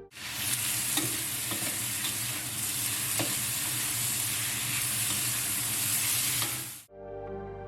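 Food sizzling hard in a hot wok as it is stir-fried over high heat, with a few light clicks of the spatula against the pan. The sizzling cuts off suddenly near the end.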